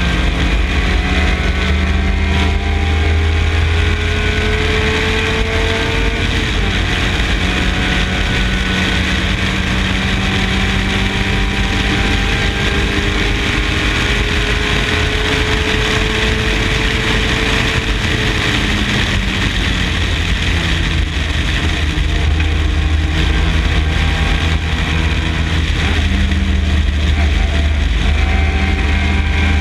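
MG Midget race car's four-cylinder engine running hard at racing speed, its pitch climbing slowly in long pulls, with a break about six seconds in and a fall in pitch about two-thirds of the way through before it pulls again. A dense rushing noise runs under the engine throughout.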